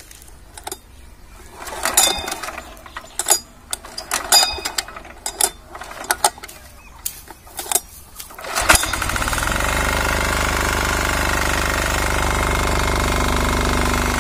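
Mini tractor's single-cylinder diesel engine being readied by hand, with scattered clicks and knocks. About nine seconds in it starts and settles into a loud, steady run.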